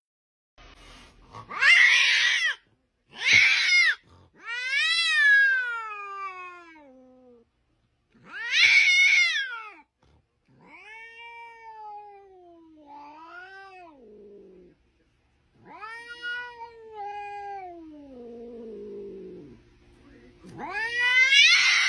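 Domestic cat meowing over and over: about nine long, drawn-out meows with short pauses between, several of them sliding down in pitch.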